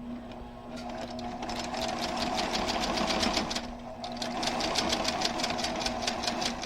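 Sewing machine stitching a seam: the motor hums, then picks up into rapid, even needle strokes. It eases off briefly a little past the middle, runs again, and cuts off sharply at the end.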